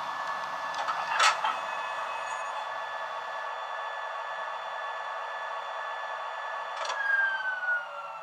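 DCC sound from a model 1959 London Underground tube stock train, played through its small onboard speaker as the train comes to a stand: a steady electrical whine, two short loud bursts about a second in and near the end, and after the second a tone falling in pitch.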